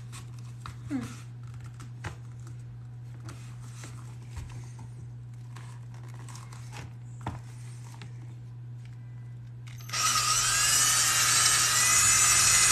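Small handling clicks, then about ten seconds in a small electric drill with a 3.5 mm bit starts up loud and high-pitched, drilling a starter rivet hole into layered leather.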